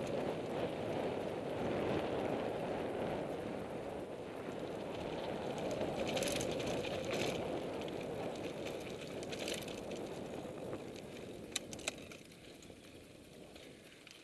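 Riding noise from a mountain bike ridden fast on sandy dirt trail: wind buffeting the bike-mounted camera's microphone over the rumble and rattle of knobbly tyres and the bike, with scattered sharp clicks. The noise eases off over the last few seconds.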